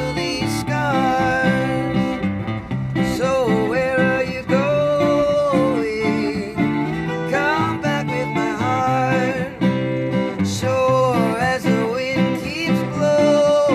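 A band playing a song live on guitars, with a lead melody line sliding and bending between notes over steady chords.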